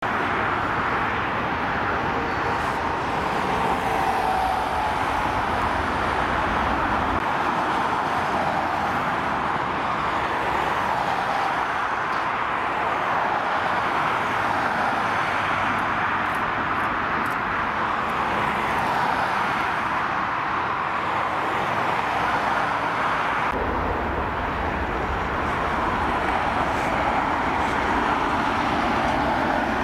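Boeing 767-300ER's two General Electric CF6-80 turbofan engines running at taxi power: a steady rushing jet noise.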